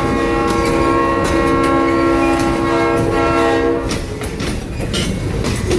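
Locomotive's Leslie RS5T five-chime air horn sounding one long, steady chord that cuts off about four seconds in. The rumble of the passing train and the clicking of its wheels over rail joints run underneath and carry on after the horn stops.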